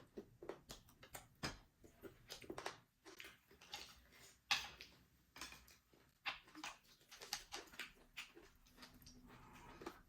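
Close-up eating sounds: a scatter of sharp clicks and taps of utensils against dishes, with chewing.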